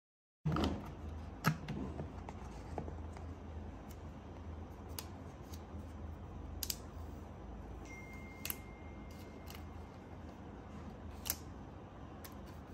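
Scattered light clicks and taps of hands handling things, over a steady low hum. The sound cuts in abruptly about half a second in, and the sharpest click comes about a second later.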